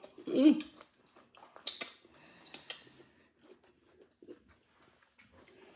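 Close-miked chewing of a crunchy hard-shell taco, with a few sharp crunches about two and three seconds in and fainter chewing after. A short voiced murmur comes right at the start.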